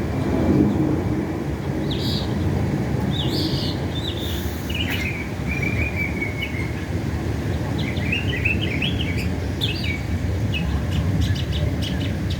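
Northern mockingbird singing a string of short, varied phrases, some of them rapid warbling runs, over a steady low rumble of background noise.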